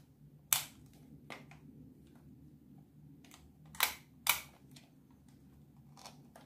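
Sharp plastic clicks from a Holga 120 CFN toy camera being handled: one about half a second in, another a second later, then two close together around four seconds in.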